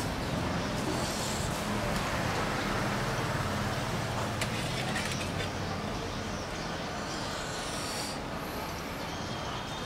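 A steady low motor hum, with a few light clinks of a metal spoon against a steel tray.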